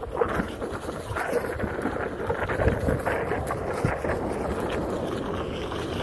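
Wind buffeting the microphone as a Onewheel rolls fast over a bumpy dirt trail. Its tyre runs with a steady rumble, broken by frequent small knocks from rocks and bumps.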